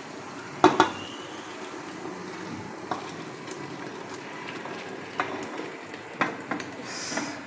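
Aluminium pot knocking against the rim of a pressure cooker as thick cooked dal is tipped into it: two sharp knocks about a second in, then a few lighter clinks, over a steady background hiss.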